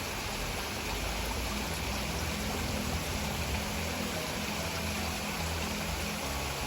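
Water running steadily in a small stream, with a low rumble underneath.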